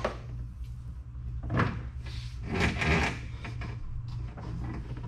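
Corrugated plastic rigging tube and battery cables rubbing and scraping as they are handled and fed through. There are a few short scrapes, about a second and a half in and again around three seconds, over a steady low hum.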